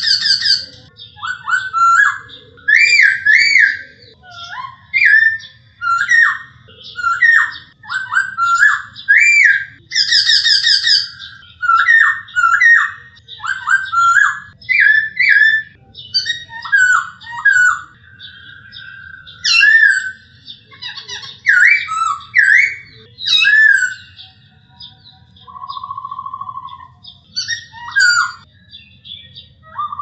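Male black-throated laughingthrush singing: a long, varied run of loud whistled phrases of slurred rising and falling notes, with a short steady whistle near the end.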